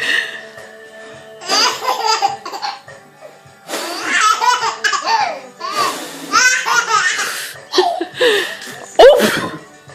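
A baby laughing hard in about five separate fits of belly laughter, with a sudden loud outburst about nine seconds in.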